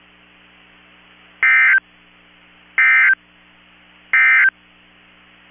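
NOAA Weather Radio EAS end-of-message signal: three short, identical bursts of SAME digital data tones, evenly spaced about 1.3 seconds apart, marking the end of the Required Weekly Test. A faint steady low hum lies underneath between the bursts.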